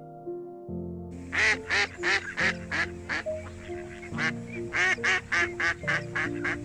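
Ducks or geese calling in a rapid, overlapping series of loud quacks and honks, starting about a second in, over soft piano background music.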